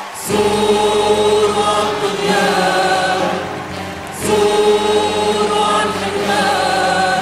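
Background music: a choir singing together in long held phrases, a new phrase starting about four seconds in.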